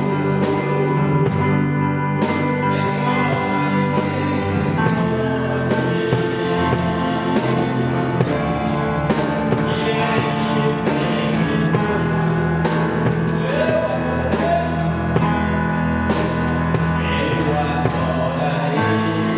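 Electronic keyboard playing a worship song: sustained chords and a melody over a steady programmed drum-kit beat.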